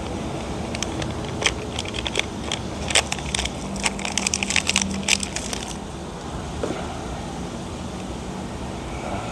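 Plastic coffee sachet crinkling and crackling as it is handled and emptied into a mug: a run of sharp crackles, densest about four to five seconds in, that stops about six seconds in.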